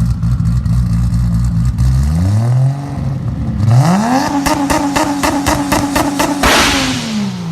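A motor vehicle engine idling, then revving up twice to a high held pitch with a run of regular sharp clicks, and dropping back down near the end. A short burst of hiss comes just before the revs fall.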